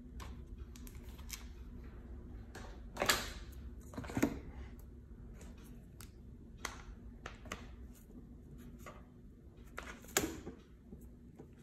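Handling noises as an iPad Pro in its protective wrap is lifted out of its cardboard box: light taps and clicks with brushing rustles. The louder rustles come about three and four seconds in and again near the end.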